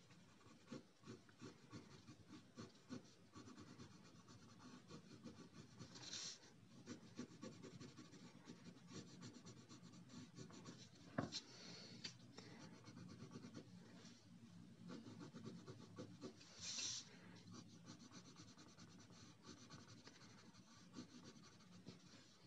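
Faint scratching and rubbing of coloured pencils shading on paper, in many short strokes. A sharp click about eleven seconds in as the pencils are handled, and a couple of brief soft hisses.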